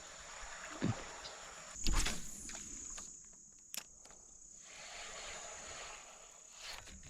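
Quiet outdoor ambience: a steady high-pitched tone sets in about two seconds in, over a faint background hiss. A few soft knocks and one sharp click are heard, the loudest knock about two seconds in.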